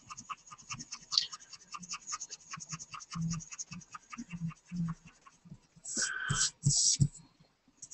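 A pen scratching across paper in quick, short strokes as a drawing is inked. About six seconds in, two louder hissy sweeps follow as the sheet is slid and turned on the wooden desk.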